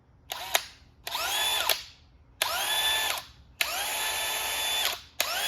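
DeWalt DCD999 brushless hammer drill running unloaded in short trigger pulls: about five bursts that grow longer, each spinning up with a rising whine to a steady pitch and stopping abruptly.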